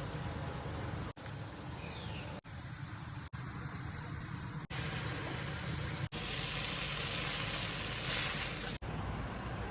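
Busy street background noise: a steady hum and hiss of traffic and activity. The sound cuts out for an instant about six times, with a brighter hiss for a few seconds near the end.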